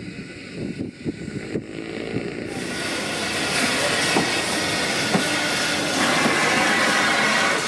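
A diesel railcar approaching on the line: a low rumble at first, then, about two and a half seconds in, a louder rushing noise that keeps building, with a couple of clicks from the wheels on the track.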